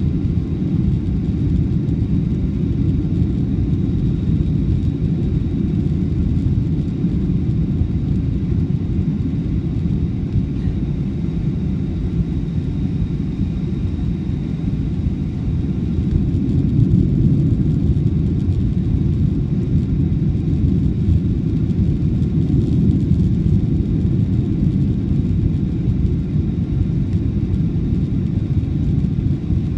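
Steady low roar of a Boeing 757's engines and airflow heard from inside the passenger cabin on approach to landing, with a faint high whine over it.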